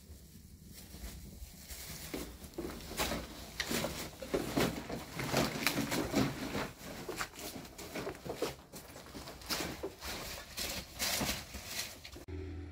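Irregular crunching and rustling of footsteps in rubber boots over rubble and litter, with a plastic bag and a woven sack rustling. Near the end it changes abruptly to a steady low rumble of wind on the microphone.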